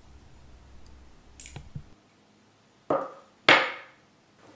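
Small ring-shaped rifle kit parts, an aft support and its cover, handled with a few faint clicks, then set down on a tabletop with two sharp knocks about half a second apart, the second louder.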